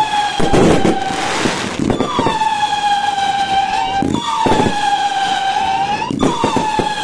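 An emergency vehicle siren sounds, each call starting high, dropping quickly and then holding steady, repeating about every two seconds. Firework bangs and crackle go off underneath it.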